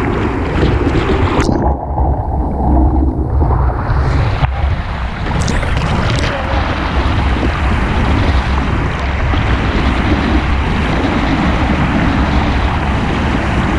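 Whitewater rushing and churning around a kayak's bow close to the microphone, with paddle strokes splashing and water slapping the hull, over a heavy low rumble. The sound turns muffled for about three seconds starting a second and a half in, then comes back bright with a splash of water over the deck about five and a half seconds in.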